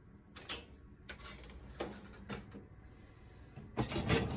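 Light clicks and knocks from a dishwasher being opened and its racks handled, with a louder clatter about four seconds in.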